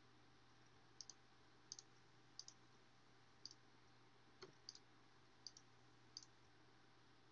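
Computer mouse clicking faintly, about eight clicks spaced roughly a second apart, many as quick double clicks, over a faint steady hum.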